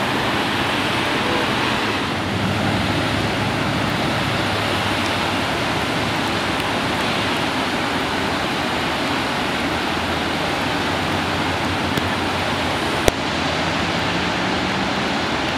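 Floodwater of a desert river in flash flood rushing past in a steady, loud roar of noise. A single sharp click sounds about thirteen seconds in.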